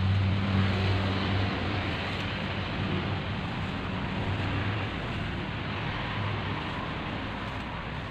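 Low hum of a motor vehicle's engine passing at a distance, strongest in the first second or two and then fading, over a steady outdoor hiss.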